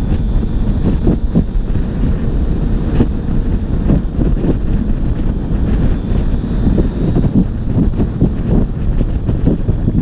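Wind buffeting the microphone of a camera on a Yamaha XSR900 motorcycle cruising at about 70 km/h, a dense gusting rumble with no clear engine note standing out.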